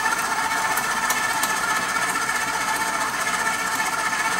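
KitchenAid stand mixer running steadily at low speed, beating cream cheese frosting with the confectioners' sugar mixed in; its motor gives an even hum.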